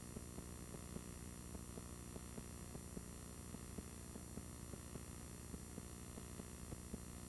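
Steady electrical hum and hiss with faint, rapid ticking.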